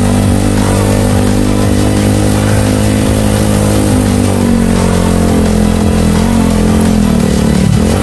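Vehicle engine running at a steady speed under way, with its pitch dipping briefly near the end.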